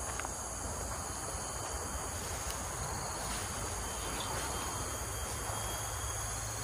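Steady insect chorus: several thin, high, continuous tones over a soft hiss, with a faint low rumble underneath.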